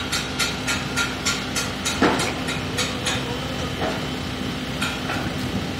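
Steel-frame erection work: a crane's engine runs with a steady hum while sharp metallic taps on the steel come about three to four a second for the first three seconds, with a louder knock about two seconds in and a couple more taps near the end.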